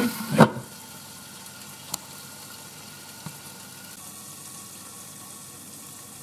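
Green beans and onions sautéing in a Ninja Foodi's pot; a glass lid is set down on the pot with a clank about half a second in, after which the sizzling goes on steady and muffled under the lid, with a couple of faint ticks.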